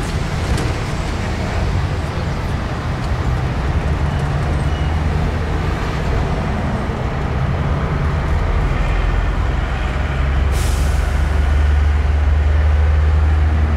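Open-top sightseeing bus driving along a busy road: a steady low engine drone with road and traffic noise. About ten seconds in, a short hiss sounds and the engine drone grows louder.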